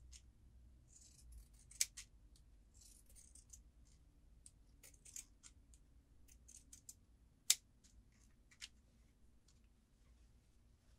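Pinking shears snipping along the curved seam allowance of a sewn fabric pillow: irregular crisp snips with soft fabric rustling between, a louder snip about two seconds in and a sharper one past the middle.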